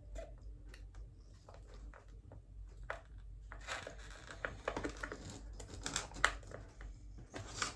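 Hands handling small acrylic hinges: light plastic clicks and crinkling, busier from about halfway through.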